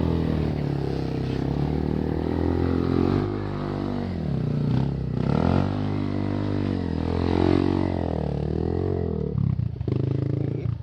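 Trail bike's single-cylinder four-stroke engine running and being revved, its pitch rising and falling several times as the rider works the throttle on rough ground.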